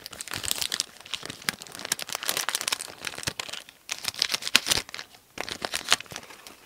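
Match Attax trading-card pack wrapper being torn open and crinkled by hand: a run of crackling and rustling with brief pauses about four and five and a half seconds in.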